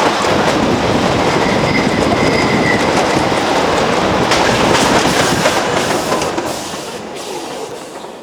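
Wooden roller coaster train rattling and clattering along its wooden track, with a brief high wheel squeal about two seconds in. The rattle gets quieter over the last couple of seconds.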